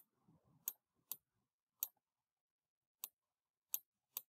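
Faint, sharp clicks from a computer pointing device, about seven of them at uneven intervals, made as letters are drawn on screen. There is a faint low murmur in the first second.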